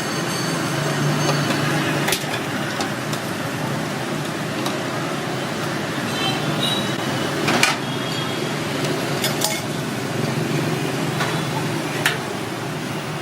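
Busy street ambience: steady traffic noise with a few sharp clinks and knocks, like dishes or utensils, about two, seven and a half, nine and twelve seconds in.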